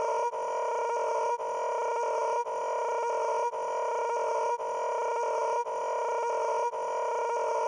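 A steady buzzing tone with overtones, repeating as a loop with a brief dip about once a second.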